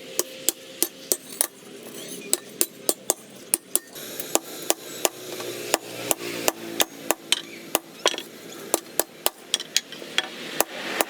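Hammer blows on leaf spring steel over an anvil, a steady run of about three strikes a second, each ringing briefly.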